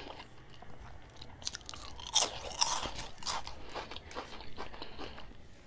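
Someone biting into and chewing a crisp snack chip close to a clip-on microphone. It starts with softer chewing, then a run of sharp crunches from about a second and a half in to past three seconds, then softer chewing again.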